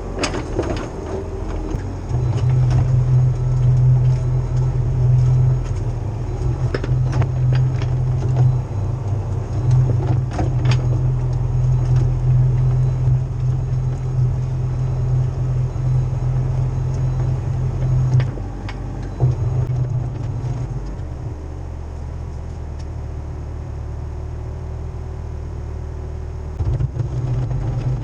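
Cat 304 CR mini excavator's diesel engine working hard, its hum rising about two seconds in, easing off a few seconds after the middle and climbing again near the end, with scattered metallic knocks.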